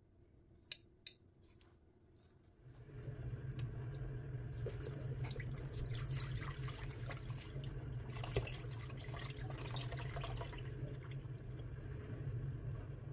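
Two light clicks, then liquid pouring steadily into a vessel from about three seconds in, with splashes and crackles running through it.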